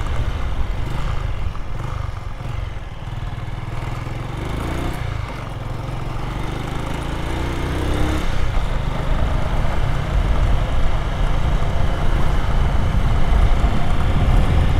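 Motorcycle engine running under way, rising in pitch twice as it accelerates, with a rushing noise building toward the end.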